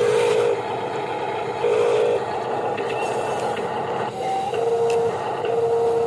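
Electric motors of radio-controlled construction models whining as they work, a steady mechanical whir with a higher whine that starts and stops several times.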